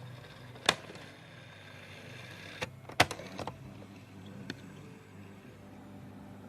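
Cassette player mechanism clicking and clunking: a sharp click about a second in, then a louder clunk with a few smaller clicks around three seconds in, and one more click later, over a steady low hum.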